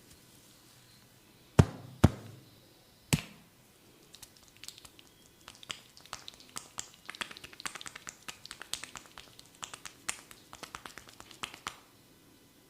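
A barber's hands working on a head during an ASMR massage: three sharp hand smacks in the first few seconds. From about four seconds in comes a long run of quick, light crackling clicks that stops about a second before the end.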